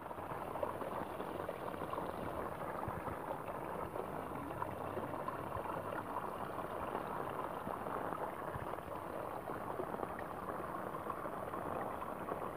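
Water in a shallow muddy stream making a steady bubbling rush with many small splashes, while hands work a fishing net in it.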